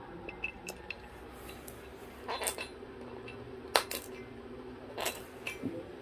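Cockatoo's beak clicking and knocking on hard objects, a few light clicks and then several sharp clacks about a second apart, as it works at wooden sticks and a plastic water bottle.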